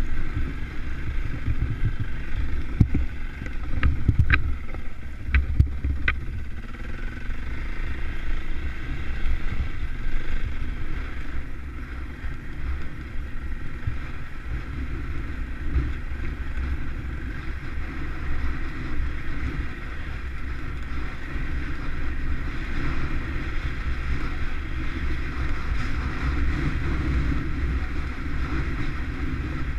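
KTM trail bike's engine running on the move, with wind buffeting the microphone throughout. A few sharp knocks come about four to six seconds in.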